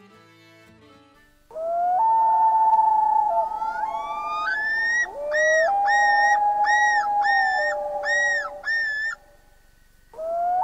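Common loons calling: long wavering wails that step up in pitch, then a run of about six repeated rising-and-falling notes. Another wail begins near the end.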